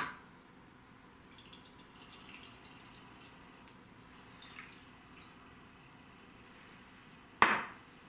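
Dark seasoning liquid is poured from a glass bowl over pieces of herring roe in a glass dish, trickling and dripping faintly. There is a clink at the start. Near the end the glass bowl is set down on the stone counter with one sharp clink.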